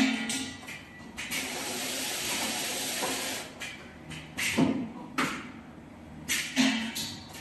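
An automatic laser welding machine for diamond saw blades in its cycle: several sharp mechanical clunks, with a steady hiss for a couple of seconds after the first one.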